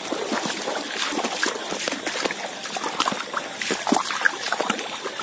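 Shallow field water trickling and gurgling, with scattered small splashes and clicks.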